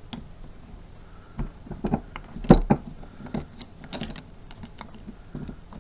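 Irregular metal-on-metal clicks and knocks of a tool working a metal part of a thermostatic shower mixer tap loose during dismantling, the loudest knock about two and a half seconds in.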